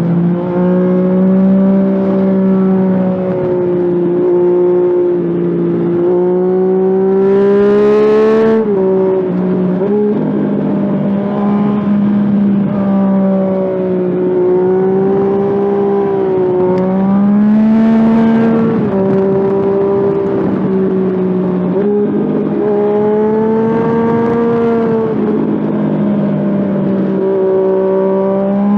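Yamaha FZ-09's inline three-cylinder engine running hard under way. Its note climbs in pitch under acceleration about three times and drops sharply after each climb, as at a gear change or when the throttle closes. A brief rush of higher noise comes at the top of each climb.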